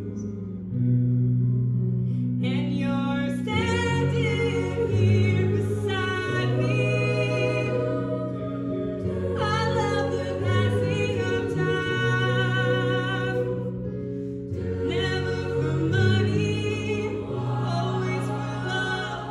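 Show choir singing a slow song: a solo female voice carries the melody over the choir's sustained harmonies. The solo line comes in about two and a half seconds in, over a chord already being held.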